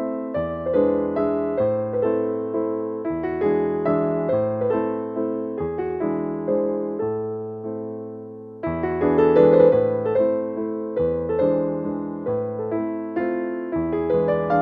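Background music: a gentle piano melody with chords, easing off about eight seconds in before starting up again.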